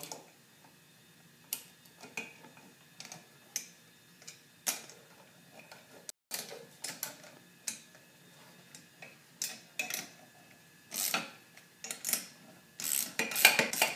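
Irregular metallic clicks and clinks of a 9/16 wrench tightening carrier bolts on a row-cleaner tread wheel, coming in louder clusters near the end.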